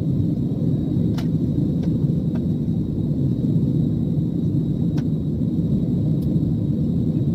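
Steady low rumble of a jet airliner's engines and rushing air, heard inside the passenger cabin as the plane climbs after takeoff, with a few faint ticks.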